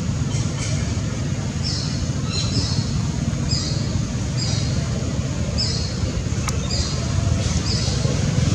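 A small bird chirping over and over, short high falling chirps about once a second, over a steady low rumble.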